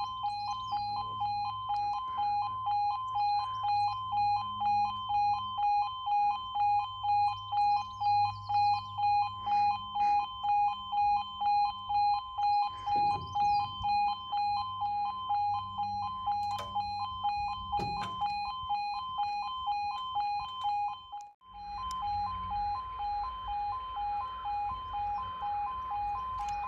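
Railway level crossing warning alarm sounding, two high tones pulsing evenly about one and a half times a second. About 21 seconds in it breaks off briefly, then resumes with quicker pulsing over a low rumble.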